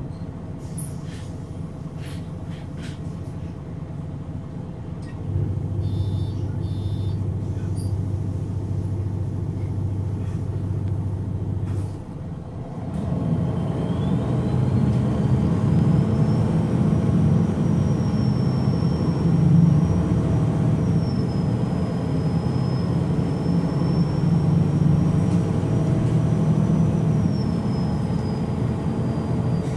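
A MAN NG313 articulated bus's D2866 LUH turbocharged horizontal inline-six diesel idling at standstill. The hum steps up about five seconds in. After a brief dip it grows louder, and a high whine rises and then holds, typical of the bus's hydraulic cooling fan spinning up.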